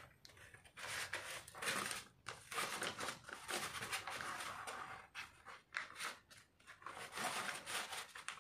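Square of origami paper rustling and scraping in irregular strokes as it is folded, pressed flat along the crease by hand and opened out again.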